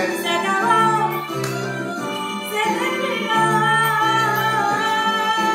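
Song playing: a woman singing over a bouncing bass line, holding one long note from about three seconds in.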